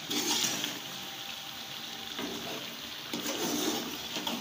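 Chicken in a watery tomato gravy sizzling and sloshing in a karahi while being stirred with a spatula, in several short bursts of stirring.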